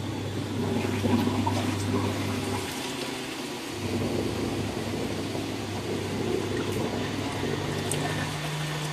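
Water running or splashing over a steady low machine hum; the hum drops out for a moment and comes back at a higher pitch near the end.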